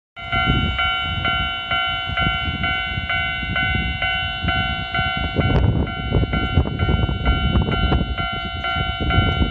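Japanese railway level-crossing warning bell ringing, a bright electronic ding repeating steadily about twice a second. A constant low rumble lies underneath, with scattered clicks and knocks from about halfway through.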